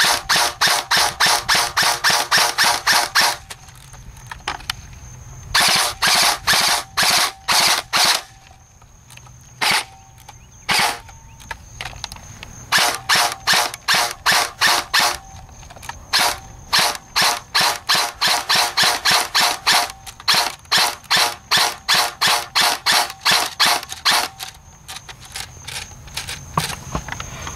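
JG M16A2 airsoft electric rifle firing strings of rapid shots, about five a second, broken by pauses of a few seconds and a couple of single shots in the middle.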